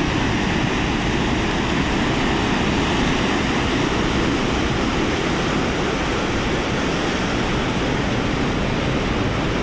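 Sea surf breaking and washing over a boulder shore: a steady rushing noise with no distinct breaks.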